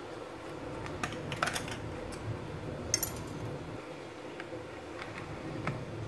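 Light plastic clicks and taps as a GHD hair dryer's plastic housing is handled and worked on with a small screwdriver, loudest a sharp double click about three seconds in.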